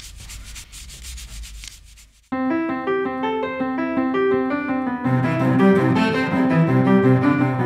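Quick, scratchy rubbing strokes that stop abruptly about two seconds in, replaced by louder solo piano music; a deeper bass part joins the piano about five seconds in.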